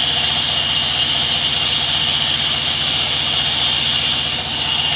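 Sawmill machinery running steadily: a low, rapid, even engine pulse with a constant high whine over it.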